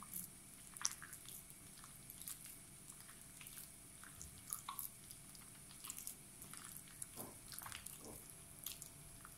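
Faint, irregular wet squelching and soft clicks of a bare hand squeezing and mashing softened butter with raw eggs and oil in a glass bowl.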